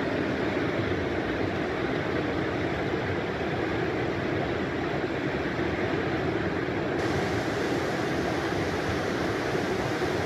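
Steady rush of flowing stream water, an even, unbroken noise at a constant level.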